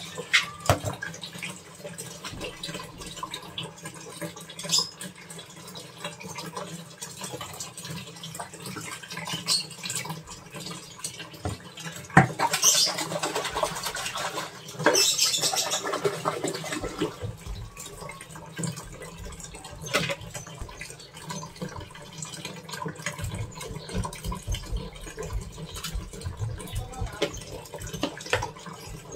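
Water running and splashing in the wash tub of a Midea twin-tub washing machine, with clicks and knocks of plastic detergent bottles being handled and liquid poured in. There are louder splashing stretches about twelve to sixteen seconds in.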